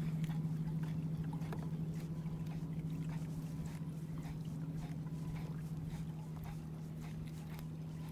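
Steady low electric hum of the Old Town Sportsman Autopilot 136 kayak's built-in electric trolling motor, with faint scattered clicks over it.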